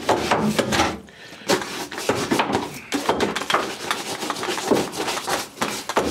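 Long-handled scrub brush scraping back and forth over the metal walls of an outboard test tank in repeated, irregular strokes.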